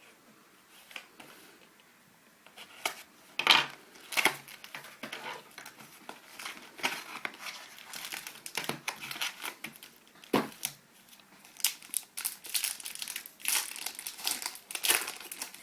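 Plastic wrapping crinkling and tearing as a sealed box of trading cards is cut open and unwrapped. It starts about two and a half seconds in and carries on as an irregular run of crackles and rustles.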